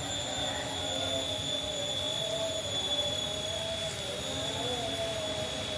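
A steady engine drone whose pitch drifts slowly up and down, over a constant high-pitched whine.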